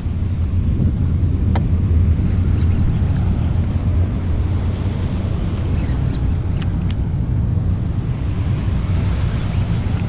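Wind buffeting an action camera's microphone, a steady low rumble, with water lapping around a kayak. A few light clicks come through, the loudest about a second and a half in and several more in the middle.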